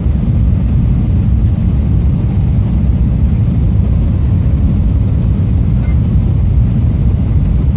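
Steady low rumble of an airliner's cabin noise during the descent to land: engine and airflow noise heard from inside the cabin.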